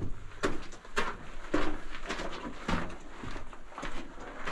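Footsteps on the rocky, gravel-strewn floor of a mine tunnel, a steady walking pace of roughly three steps every two seconds.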